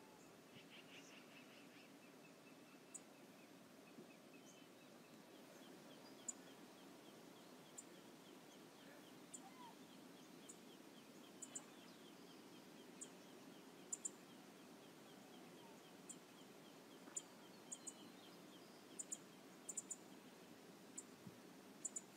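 Faint, steady outdoor background noise with about twenty short, sharp high clicks scattered irregularly through it, and a brief faint bird call about half a second in.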